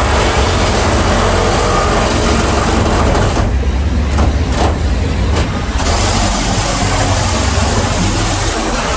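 Heavy rotator tow trucks' diesel engines idling with a steady low rumble. Over it is a loud, even hiss that cuts out for about two seconds midway, flickering back briefly in between.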